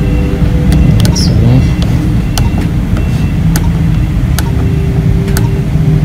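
Printer control-panel buttons being pressed: several short, sharp clicks spaced irregularly about half a second to a second apart, as the menu is stepped through. They sit over a louder, steady low rumble with shifting engine-like tones, like road traffic.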